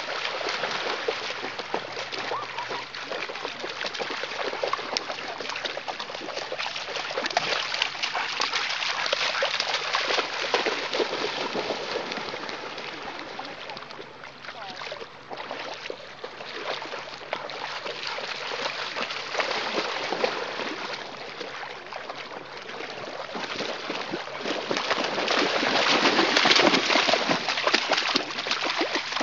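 Bernese mountain dogs splashing as they run and wade through shallow sea water, a continuous dense splashing that dips in the middle and is loudest a few seconds before the end.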